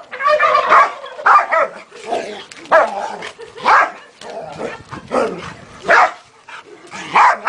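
Dog barking repeatedly, loud, sharp barks coming about once a second, with a quicker flurry in the first second.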